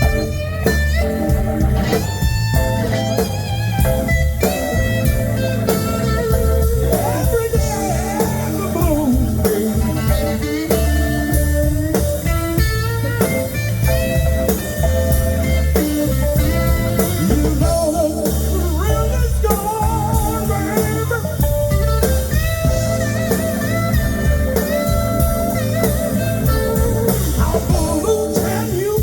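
Live blues band playing, with a lead electric guitar line over bass and drums; the guitar bends notes.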